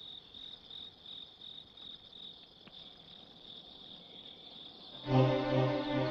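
Crickets chirping in a steady pulsing trill. About five seconds in, music cuts in suddenly with sustained chords over a throbbing low note, while the crickets carry on underneath.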